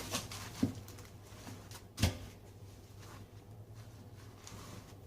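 Two soft knocks from things being handled, a small one early and a louder one about two seconds in, over a low steady hum.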